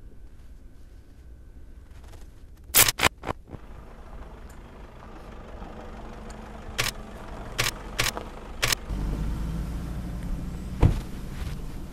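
Sharp clicks, a quick cluster about three seconds in and a few more spaced out later. Then, about nine seconds in, a Toyota pickup's engine starts and runs with a steady low rumble, with one more sharp knock near the end.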